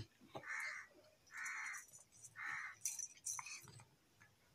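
A bird cawing three times, each call short and harsh, about a second apart, followed by a few light clicks.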